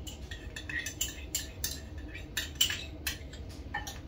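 A small spoon clinking and tapping against a bowl and seasoning containers: a string of short, irregular clinks while seasonings are measured into a shrimp marinade.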